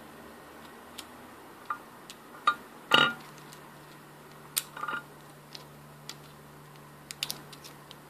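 Small screwdriver tip scraping and clicking against the retaining clip inside a metal aviation connector shell, a few light irregular ticks with a louder knock about three seconds in.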